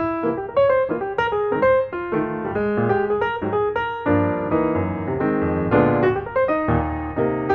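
Background piano music, a steady flow of quickly struck notes and chords.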